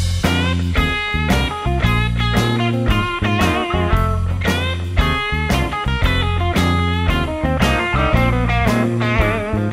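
Background music: an instrumental rock tune led by guitar over a steady beat.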